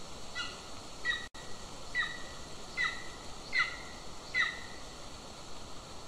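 Golden eagle calling: a series of six short, high yelping notes about a second apart, each ending in a downward slur, over a steady hiss.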